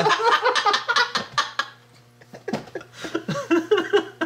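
A group of three people laughing hard together; the laughter dies down about two seconds in, then picks up again in a few shorter bursts.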